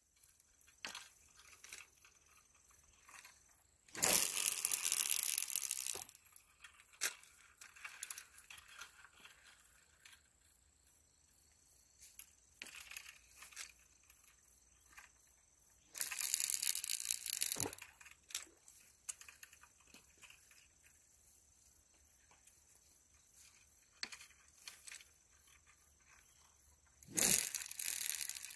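Three bursts of rustling, crinkling noise, each about two seconds long, with scattered faint clicks and ticks between them.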